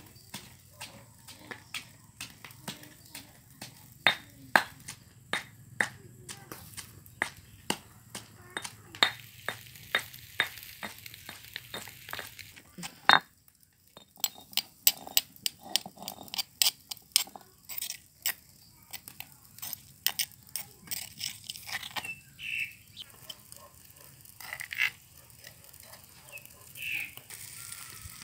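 Pestle pounding garlic and chilies in a stone mortar: a steady run of sharp knocks, about two to three a second, with a brief pause midway.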